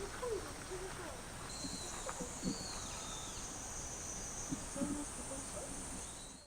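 Faint outdoor ambience of insects buzzing, with a steady high drone coming in about a second and a half in, a few short bird chirps, and it cuts off suddenly at the very end.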